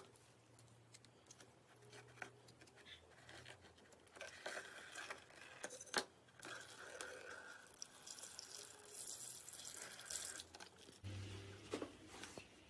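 Faint, wet squishing and crackling of slime being handled, with scattered small clicks and one sharp click about six seconds in.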